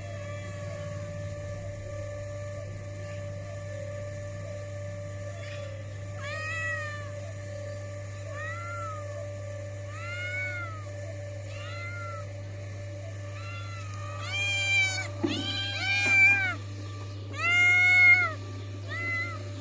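Kitten meowing again and again in high, arching calls, sparse at first, then louder and closer together in the last few seconds.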